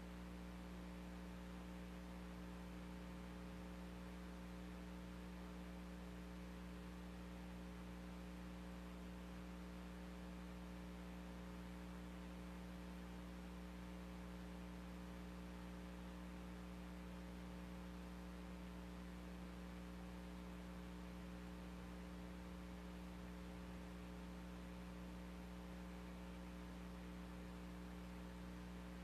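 Faint steady electrical hum over a light hiss.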